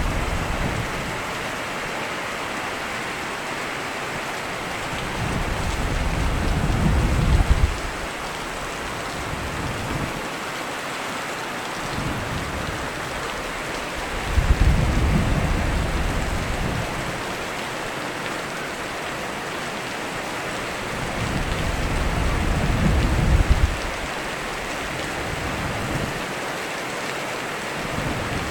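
Steady heavy rain falling, with low rumbles of thunder swelling three times, each lasting a couple of seconds.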